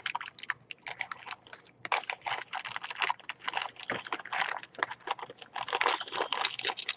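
Thin plastic bag crinkling and rustling in the fingers, with quick irregular crackles and small clicks from the toy building pieces inside it.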